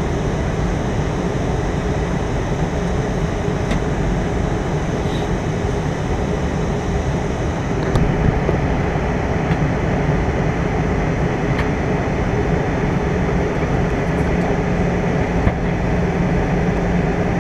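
Steady cabin noise of a jet airliner in flight, from the engines and the air rushing past the fuselage, with a low steady hum under it. A few faint clicks come through.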